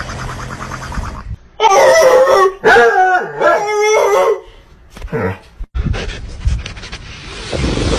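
A dog howling and whining in two long, loud calls with wavering pitch, starting about one and a half seconds in, with quieter noise before and after.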